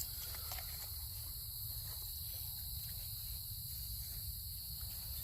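Steady chorus of night insects, crickets, a constant high-pitched trill, over a faint low rumble.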